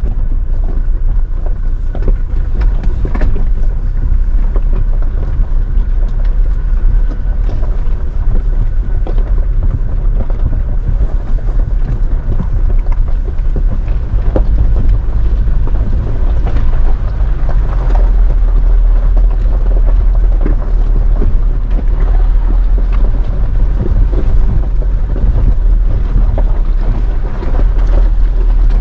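Toyota Hilux driving slowly over a rough gravel and rock mountain track, heard from inside the cab: a steady low rumble with scattered knocks and rattles from stones under the tyres.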